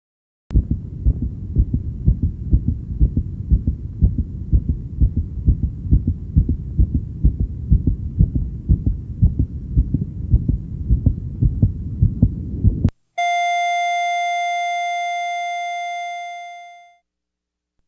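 Fast heartbeat of an unborn baby as picked up by an ultrasound Doppler, an even pulsing of soft thuds that stops abruptly. It is followed by a single clear electronic tone that fades away over about four seconds.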